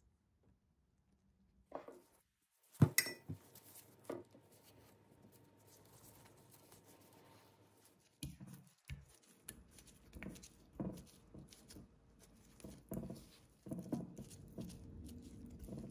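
Kitchen handling sounds. A sharp clatter about three seconds in is the loudest sound. From about halfway there is a run of small irregular taps and thuds as a knife slices cooked sweet potato over a glass measuring jug.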